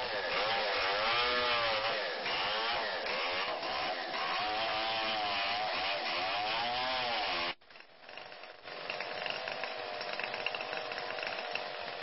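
Chainsaw cutting a fallen tree trunk, its engine pitch rising and falling again and again as it revs through the wood. About seven and a half seconds in, the sound drops away for a moment, then a steadier engine drone carries on.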